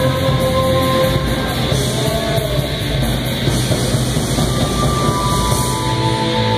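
Live rock band playing loud and steady, with distorted electric guitars and drums filling the sound.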